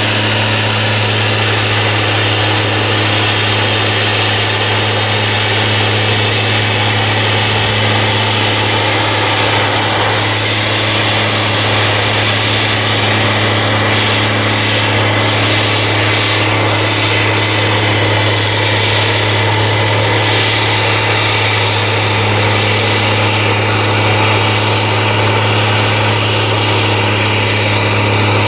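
Crawler crane's diesel engine running steadily as the crane travels on its tracks: a constant low drone.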